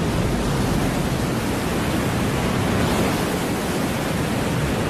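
Cartoon sound effect of a huge mass of water rushing and cascading down: a steady, even rush of noise that sets in suddenly just before and holds without a break.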